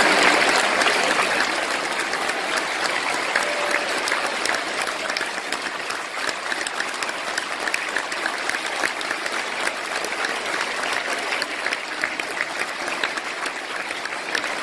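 Large banquet-hall audience applauding, many people clapping at once, loudest at the start and easing slightly after a couple of seconds.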